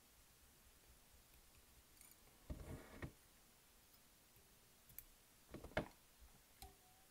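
Near silence broken by two short clusters of small clicks and rattles, about two and a half and five and a half seconds in: fly-tying scissors being handled and snipping the tag end of freshly started thread at the hook.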